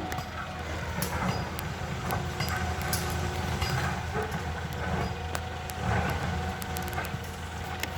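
Caterpillar excavator's diesel engine running steadily, with scattered sharp metallic clinks.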